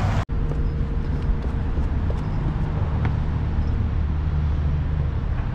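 Steady low rumble of city traffic, with a brief cut-out of the sound just after the start.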